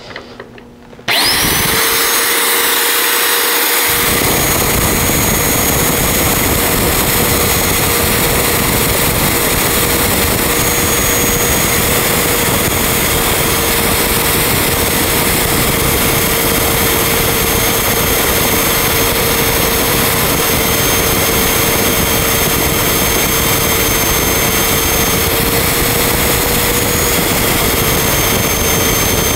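Magnetic drill starting about a second in, its motor spinning up with a rising whine, then running steadily as it bores a hole through a steel truck frame rail. A coarse, lower grinding noise joins the steady whine from about four seconds in.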